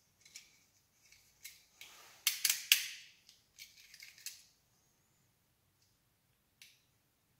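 Sharp clicks and scrapes from a Bosch Aerotwin flat wiper blade's rubber insert and its fittings being worked by hand. The sounds come in an irregular run, loudest in a quick cluster about two and a half seconds in, with one more click near the end.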